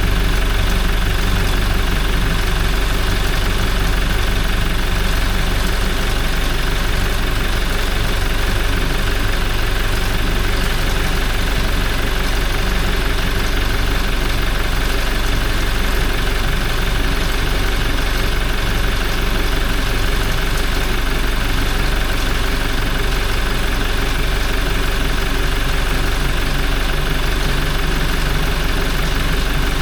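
Toyota 1GD-FTV 2.8-litre four-cylinder turbodiesel idling steadily as it warms up to operating temperature on freshly changed oil.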